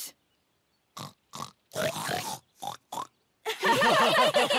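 A few short pig-like oinks and snorts, cartoon pig noises made as the muddy kittens are likened to piglets. About three and a half seconds in, music and voices start.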